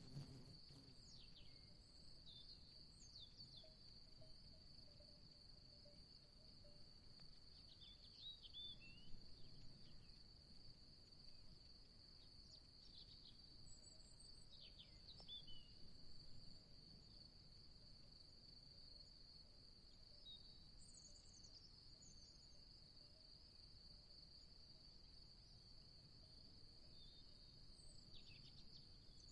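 Faint, steady high-pitched insect trill, with a few short bird chirps scattered through it.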